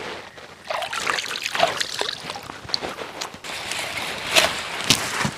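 Water splashing and trickling in a shallow channel as a hand scoops and flicks it, with scattered irregular crackles and swishes.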